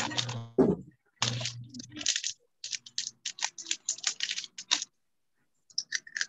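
A thump about half a second in, then quick, irregular runs of clicks like typing on a computer keyboard, cutting in and out over a video call's audio.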